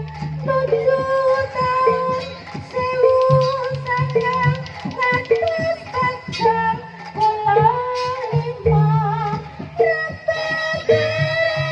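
Live Javanese jaranan music: a gamelan ensemble plays held, ringing notes under steady drum strokes, with a singer's voice gliding over it.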